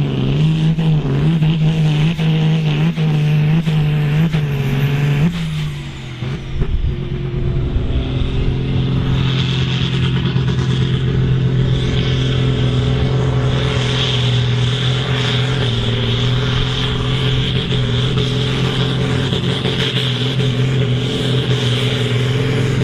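Ford pulling tractors' diesel engines running hard under load on the weight sled. The first engine note wavers and falls away about five seconds in. A second tractor's engine then holds steady at high revs to the end.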